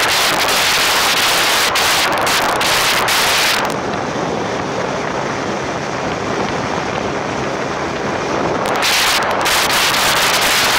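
Wind rushing past an open vehicle window, with road noise from the moving vehicle. About four seconds in, the hiss turns duller and a little quieter, and it comes back near the end.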